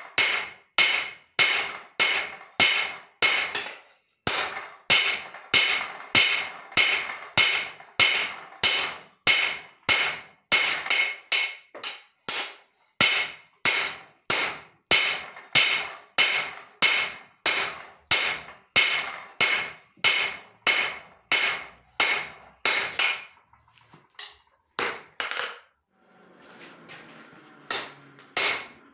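Hand hammer striking leaf-spring steel on an anvil, about two blows a second, each with a bright metallic ring. The hammering pauses briefly twice, and near the end a few seconds of fainter steady noise come before the blows resume.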